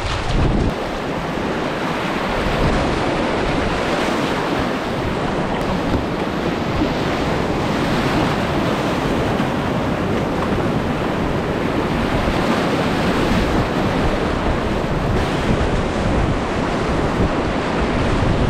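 Whitewater rapids rushing in a steady, unbroken wash of noise, with wind buffeting the microphone.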